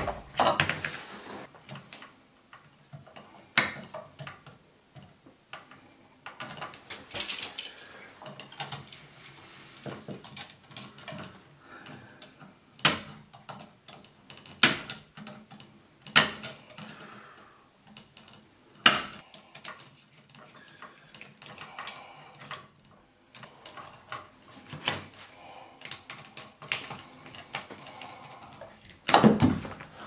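Scattered sharp clicks and small knocks from handling hand tools and copper wire: needle-nose pliers bending wire ends and the wires being fitted to a wall receptacle's terminal screws, with rustling in between.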